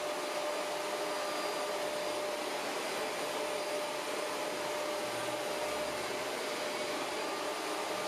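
Shark Rotator Professional Lift-Away (NV501) upright vacuum running steadily, a constant whine over a steady rush of air, as its floor nozzle is pushed back and forth over flour on a hardwood floor.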